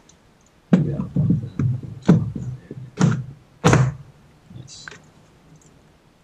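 Four loud dull thunks over about three seconds, then a faint short scrape, as plastic trim in a Tesla Model 3's front trunk is worked and popped loose.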